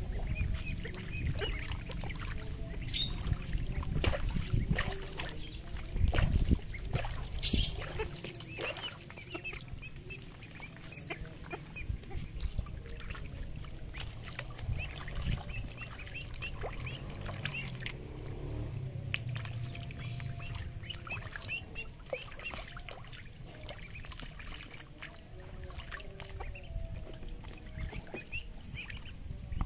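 Young domestic ducks calling in many short, high quacks and peeps, with occasional water splashes, over a steady low rumble.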